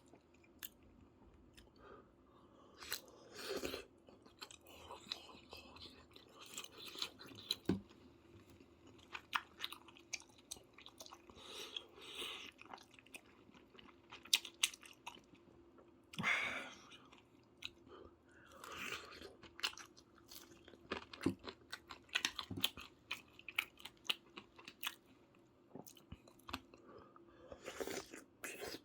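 A person chewing and biting food, with many short sharp clicks and brief crunchy sounds scattered irregularly.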